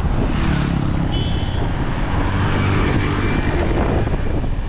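Running noise of a moving road vehicle, heard from on board: a steady low engine hum with the rush of tyres and air. A short high beep, like a horn toot, comes about a second in.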